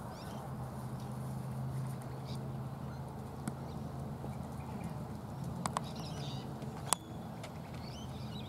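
Faint bird calls over a steady low hum, with a few sharp clicks in the second half.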